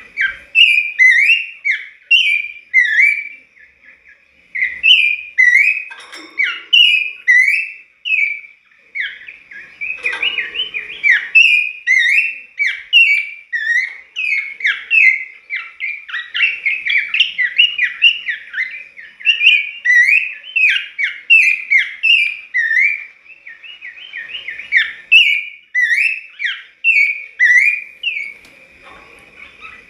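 A caged pelanduk semak, a babbler, singing in full song. It gives a fast string of short whistled notes, several a second, broken by brief pauses.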